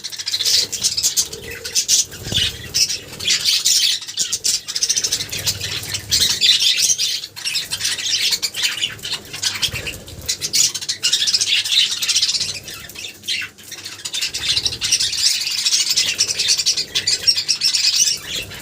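Budgerigar chattering: a dense run of fast chirps, scratchy squawks and warbles, pausing briefly a few times.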